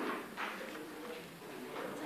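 Indistinct talking and rustling from people in the room, with no clear instrument playing.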